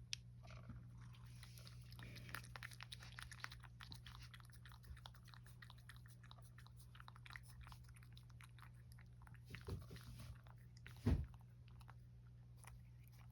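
A cat licking a lickable Churu paste treat from a squeezed tube: a long run of rapid, faint wet licking and smacking clicks. One louder low thump about eleven seconds in.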